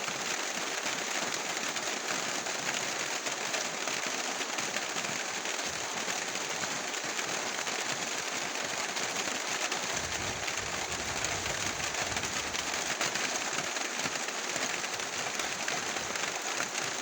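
Heavy rain falling in a steady, dense hiss of drops, with a low rumble joining for a few seconds around the middle.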